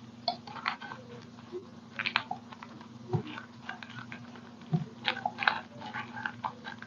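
Small irregular crackles, taps and clicks of hands working thin paper and craft tools, over a steady low electrical hum.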